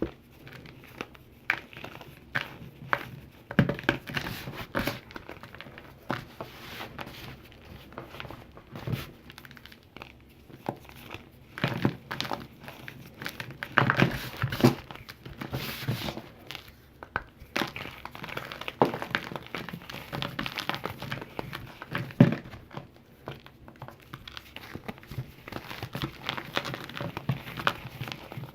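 Calcium carbonate being crumbled and crushed by hand: an irregular run of dry crunches and crackles, with a few sharper snaps standing out.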